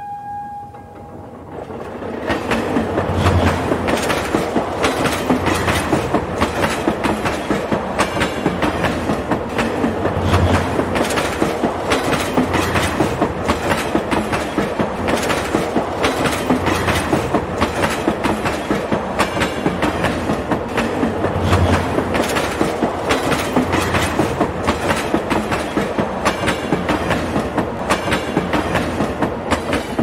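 Train wheels clattering over rail joints, a dense, steady run of clicks over a rolling rumble. The clatter builds up over the first two seconds, then holds steady.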